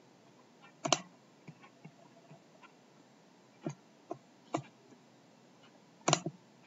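Computer mouse buttons clicking: a quick pair about a second in, three single clicks around four seconds, and a louder cluster of clicks just after six seconds.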